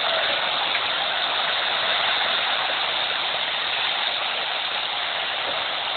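Strong typhoon wind rushing, a steady even hiss with no breaks.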